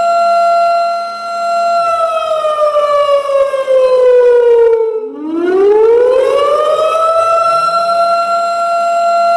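Warning siren wailing through one slow cycle: a steady high tone, a pitch slide downward over about three seconds, a brief break about halfway through, then a quick rise back to the same steady tone, which holds to the end.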